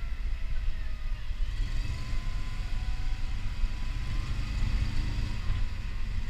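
Steady low rumble of a vehicle driving over a grass course, its engine and tyres carrying through the camera mounted on it.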